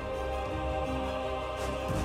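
Background music: layered held notes over a steady low bass, with a few light percussive hits.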